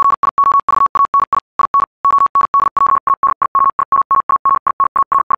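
Single-pitched electronic beep tone keyed on and off, like a telegraph signal: an uneven run of short and long beeps for about three seconds, then an even series of short beeps, about six a second.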